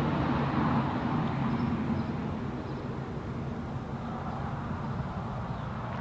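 Outdoor background ambience: a steady low rumble with a light hiss, easing slightly in level over the first few seconds.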